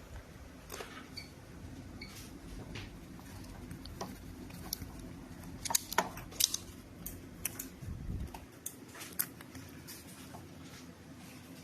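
Scattered light clicks and taps of small objects being handled, in a cluster about halfway through with a dull thump soon after, over a steady low hum.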